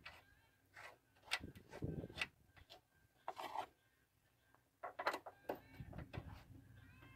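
Quiet, scattered metal clicks and short scrapes from a wrench tightening a bolt that clamps a ground wire's ring terminal to the van's sheet-metal body, with a brief pause near the middle.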